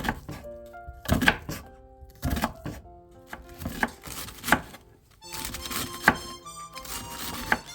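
Knife chopping on a cutting board, sharp strokes at an uneven pace, over background music.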